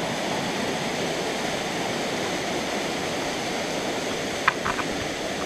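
Steady rush of water pouring over a waterfall. About four and a half seconds in, a quick cluster of three or four short high-pitched sounds cuts through it.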